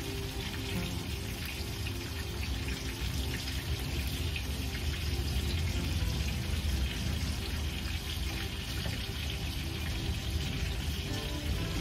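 Chicken frying in a cast iron skillet: a steady sizzle with fine crackling pops.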